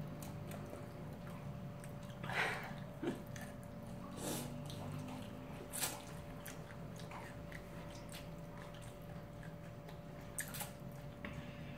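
A person slurping cold naengmyeon noodles off chopsticks in several short slurps, with chewing in between, over a faint steady hum.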